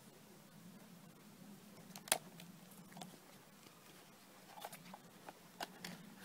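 Handling noise from a portable cassette player being taken out of its carry case: one sharp click about two seconds in, then several softer clicks and rustles near the end, over a faint steady hum.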